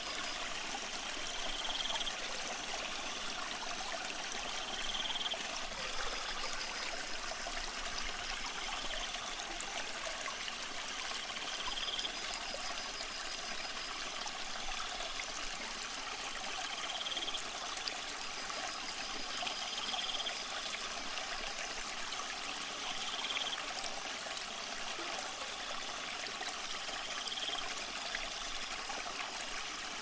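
Running water trickling steadily, with short high tones every few seconds. A high, even hiss joins for several seconds past the middle.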